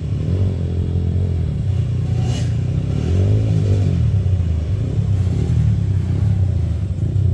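Yamaha WR155 dirt bike's single-cylinder four-stroke engine running under throttle on the trail, its revs rising and falling, with one climb in pitch about three seconds in.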